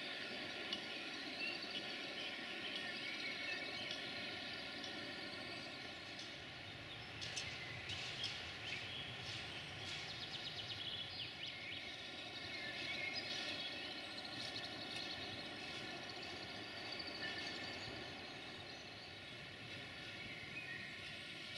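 Steady outdoor background noise with birds chirping, the chirps clustered around the middle.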